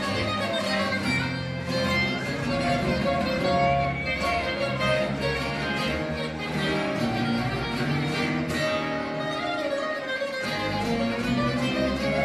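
Live acoustic music: an acoustic guitar played along with steady, sustained melody notes over a low accompaniment.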